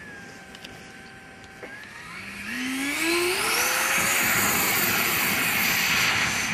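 HobbyKing BAE Hawk RC jet's electric ducted fan whining steadily at low throttle, then spooling up about two seconds in with a rising whine into a loud, steady rush at full power for the takeoff run.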